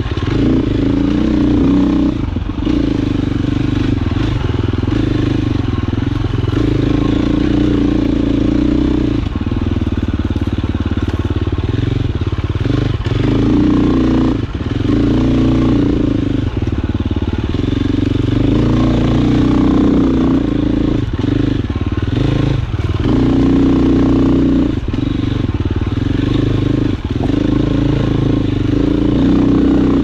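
KTM 350 XC-F single-cylinder four-stroke dirt bike engine running under constantly changing throttle. The pitch rises and falls, with short drops every few seconds as the throttle is rolled off and back on.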